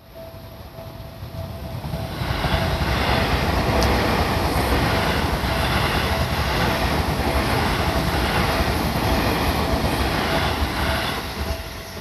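Seibu Ikebukuro Line electric commuter train passing through a level crossing. Its noise builds over about two seconds, runs loud and steady, and falls away near the end. Throughout, the crossing's warning bell keeps up its repeated ding.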